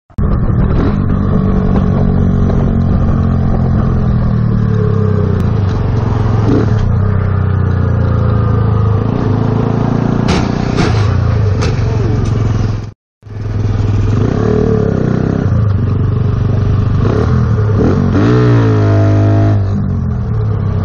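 Motorcycle engine running at highway speed with wind noise, the engine revving up with a rising pitch near the end. The sound drops out for a moment about two-thirds of the way through.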